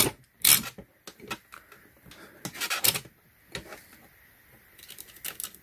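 Metal lock pick and tension tool being jiggled in the keyway of a Club steering wheel lock to turn it to unlock, giving irregular sharp clicks and short scraping rattles, with a denser cluster about halfway through and again near the end.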